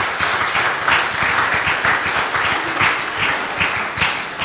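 A small group of people applauding, a steady patter of many overlapping hand claps.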